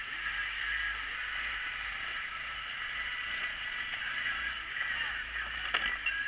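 Honda side-by-side's engine running steadily as it wades through a deep water hole, with water sloshing against it; a sharp knock near the end.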